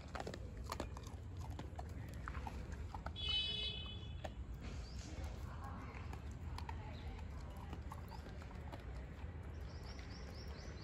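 Dog eating dry kibble: scattered crunches and sharp clicks, with one brief high-pitched squeak about three seconds in.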